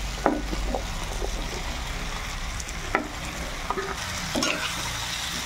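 Onion and tomato frying in oil in a frying pan, sizzling steadily, while cubed bottle gourd pieces are tipped in from a plastic plate, with a few sharp knocks as pieces land.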